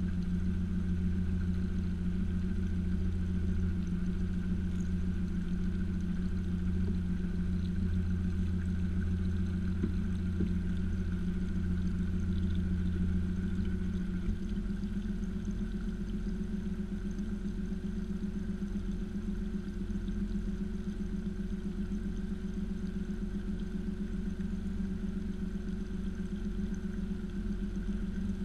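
A small boat's motor running steadily with an even hum, its note shifting slightly about halfway through as the running speed changes.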